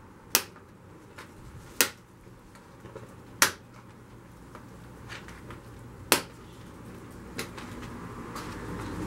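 Sharp plastic snaps as the push-pin retainers holding a 2013 Hyundai Genesis sedan's radiator shroud are popped out with a key: four loud clicks a second or two apart, then a fainter one near the end.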